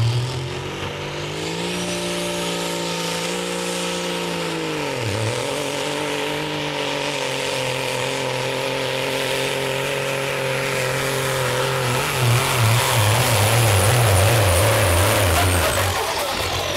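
Peterbilt semi truck's diesel engine pulling the weight sled under heavy load. The note rises early, dips sharply and recovers about five seconds in, then holds steady. From about twelve seconds the note pulses unevenly and gets louder, and a high whistle falls away near the end.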